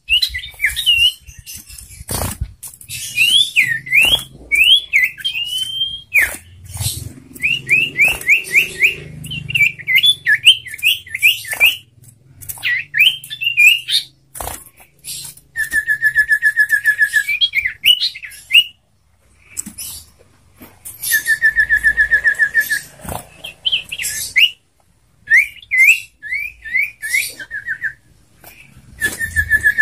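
A sirtu (common iora) singing: runs of quick rising whistled notes alternate with several rattling trills of about a second and a half each, with a few sharp clicks between phrases.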